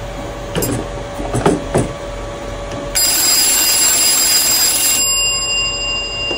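Old wall telephone's twin brass ringer bells, driven by the prop's controller, ringing in one burst of about two seconds starting about three seconds in, then fading. A few light knocks come before it.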